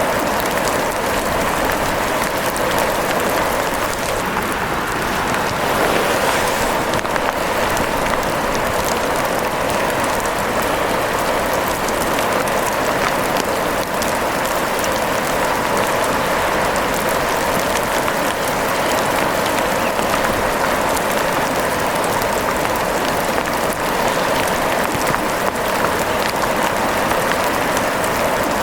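Steady rain: an even, unbroken hiss with many small ticks of drops running through it.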